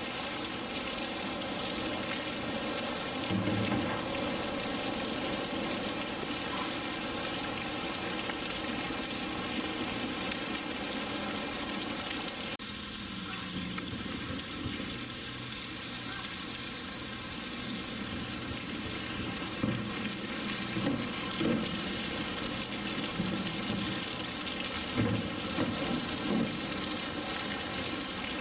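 Steady rush of running water in a polar bear's pool, with a few short louder sounds in the second half.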